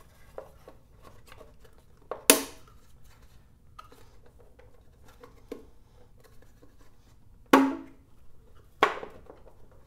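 Sharp snaps and knocks as a Harley-Davidson Dyna's black side cover is pressed and pushed into place over crammed wiring, with light clicks of handling between. There is one loud snap a couple of seconds in and two more close together near the end.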